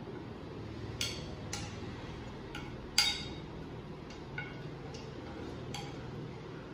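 A spoon clinking against a bowl as spices are added: about six short, sharp clinks spaced out, the loudest about three seconds in, over a steady low hum.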